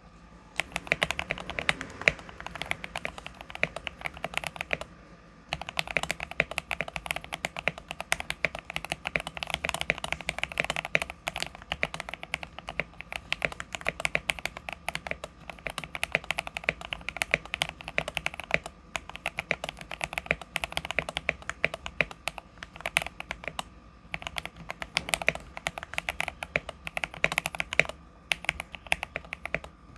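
Fast, continuous typing on an Akko ACR67 mechanical keyboard with lubed and filmed Gateron Milky Yellow linear switches, tape and foam modded, with stock stabilizers. The keys clack in quick succession, broken by a few brief pauses.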